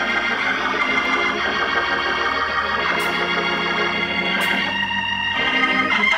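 Gospel organ playing held chords, the chord changing about five seconds in.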